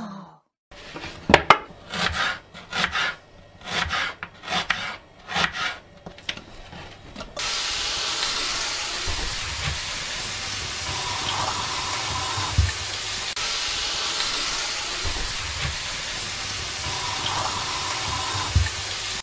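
A run of short rough scraping strokes, about two a second, then from about seven seconds in a steady sizzle of sliced onions frying in a stainless steel pan. A wooden spatula knocks against the pan now and then.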